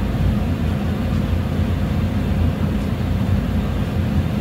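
Workshop furnace running: a steady low rumble with a faint hum above it.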